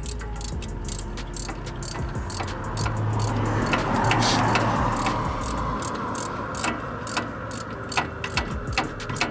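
Hand ratchet clicking rapidly while loosening the hub assembly bolts on a truck's front steering knuckle. A louder rushing noise swells for a few seconds in the middle.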